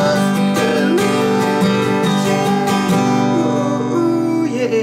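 Outro music: acoustic guitar strummed in a steady rhythm, settling into held chords that ring on in the last couple of seconds.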